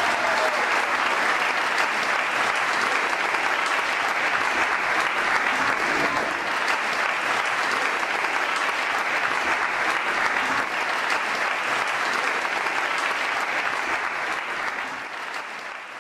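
Audience applauding, a dense steady clapping that fades out near the end.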